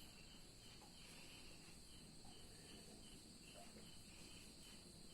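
Near silence, with a faint steady high-pitched insect sound, soft pulses repeating evenly.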